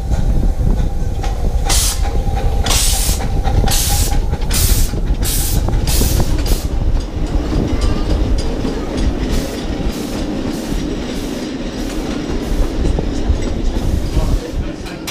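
Miniature ride-on steam locomotive pulling away: sharp exhaust chuffs that come quicker as it gathers speed, then grow fainter as it draws off, over a steady rumble of wheels on the rails.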